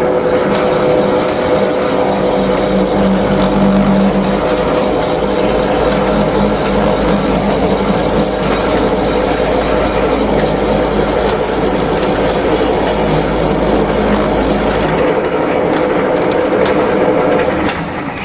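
Lathe running while turning the groove of a pulley, a loud steady mechanical whir with several steady tones and a low hum. About fifteen seconds in the low hum and the high tones stop, and the rest of the sound dies away near the end.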